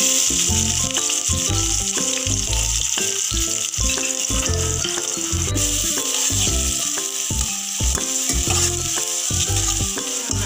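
Chopped onions sizzling in hot oil in a kadai, the sizzle starting sharply as they drop in and then running on steadily as they are stirred with a spatula. Background music plays underneath.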